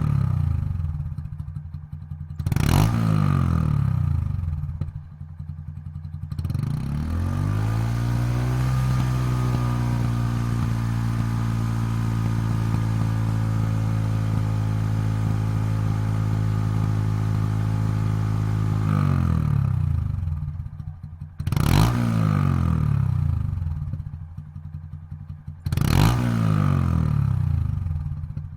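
Honda Monkey single-cylinder engine through a Yoshimura Straight Cyclone full exhaust system, idling with a quick throttle blip, then revved up and held at steady high revs for about ten seconds before dropping back to idle, followed by two more sharp blips.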